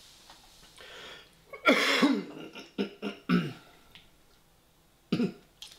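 A man coughing and clearing his throat: one loud cough about a second and a half in, a few shorter coughs just after it, and one more near the end.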